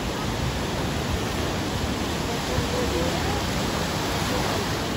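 Steady rush of surf washing over the shallows, with wind on the microphone, and faint voices in the background.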